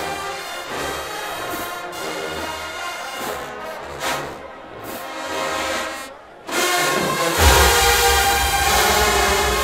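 A massed marching band brass section plays from the stands. After a brief drop about six seconds in, the full band comes back in louder, and heavy low brass from the sousaphones joins about a second later.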